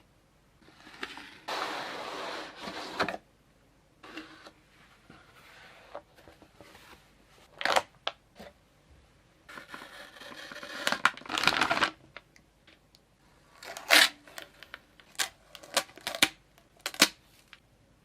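Graphics card packaging being handled and opened: cardboard and plastic rustling and sliding in two stretches, with scattered sharp clicks and taps, most of them in the second half.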